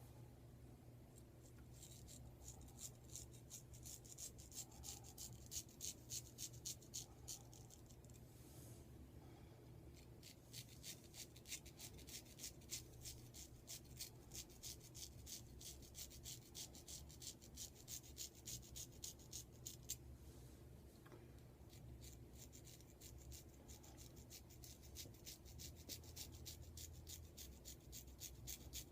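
Straight razor (a vintage Adoration 166 blue-steel square tip) scraping stubble off skin slicked with lather-less shaving cream, in quick short strokes a few times a second; each stroke is a faint rasp. The strokes pause briefly about eight seconds in and again about twenty seconds in.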